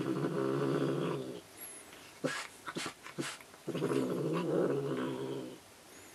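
A domestic cat growling twice in long, low growls while it bites and grips a toy grasshopper, worked up and angry over the toy. A few short clicks come between the two growls.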